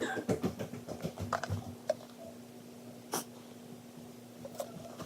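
Sticky slime being worked in a bowl with a spoon: a run of wet squishes and clicks in the first two seconds, then a few single sharp clicks.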